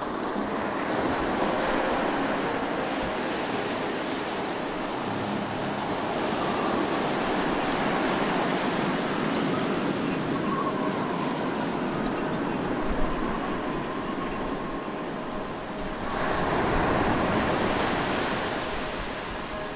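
Sea waves breaking and washing on a shingle beach: a steady rush of surf that swells and eases. A single short click about two-thirds of the way in.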